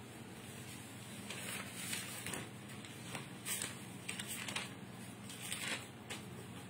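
Faint handling noise: scattered soft rustles and taps of a hand on a paper textbook page, over a low steady room hum.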